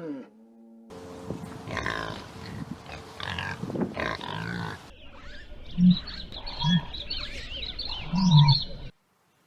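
Farm animals calling: a few short, low grunt-like calls with many high chirping calls over them, then a sudden cut to silence near the end.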